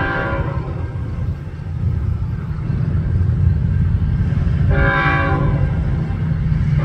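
Locomotive air horn sounding for a grade crossing: a chord-like blast ends about half a second in, and a second blast begins near five seconds in. A low rumble runs underneath.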